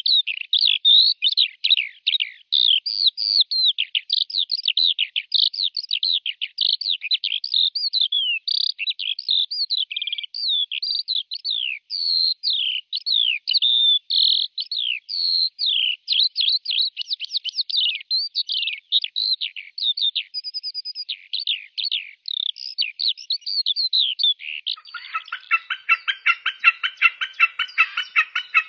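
Birds chirping in a fast, unbroken stream of high, squeaky, mostly falling notes. About 25 seconds in, a harsher, rapidly pulsed buzzy chatter takes over.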